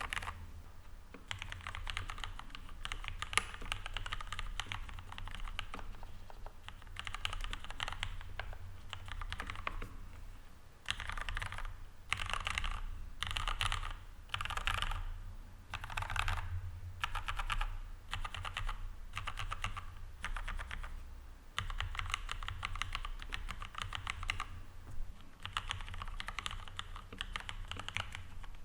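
Typing on a Leopold 750R mechanical keyboard fitted with lubed Cherry MX Red linear switches and lubed, tuned stock stabilizers. Runs of quick keystrokes are broken by short pauses, with several separate heavier presses in a row around the middle.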